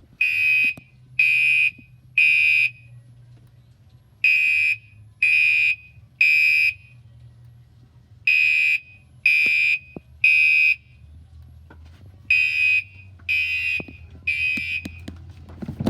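Two Gentex Commander 3 fire alarms sounding on the mechanical horn tone at low volume in the code-3 temporal pattern: three short blasts, a pause, then three more. The group of three repeats four times.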